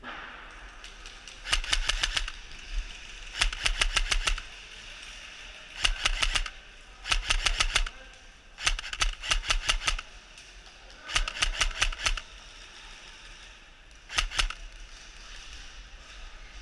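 Airsoft gun firing in rapid automatic bursts of sharp clicks, about ten shots a second, seven bursts in all.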